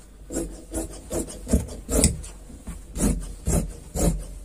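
Large tailor's shears cutting through cloth along a chalk line: snip after snip, about two a second, as the blades close on the fabric.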